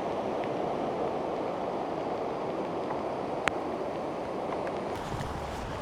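Floodwater of the swollen Nam Khan river rushing in a steady, continuous noise, a sound the onlooker calls "so angry". One sharp click about three and a half seconds in, and a low wind rumble on the microphone near the end.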